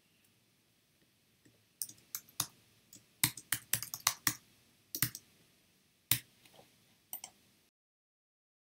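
Typing on a computer keyboard: irregular bursts of sharp key clicks starting about two seconds in, then the sound cuts out completely near the end.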